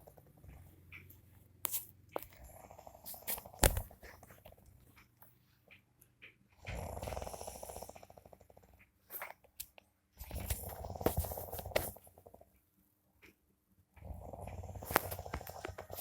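Snoring in sleep: rattling snores about every four seconds, with a few sharp clicks between them.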